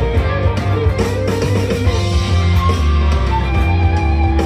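Electric guitar lead on a Firefly FFLG SG-style guitar with humbucker pickups, played through an amp over a galloping blues-rock backing track in G minor with bass and drums.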